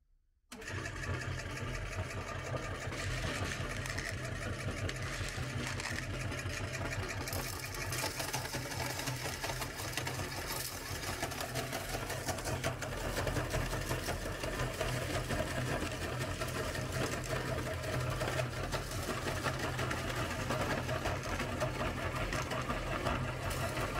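Motor-driven meat grinder starting up about half a second in and running steadily with a low hum, its auger crunching small hard candies into powder with a dense, fine crackle.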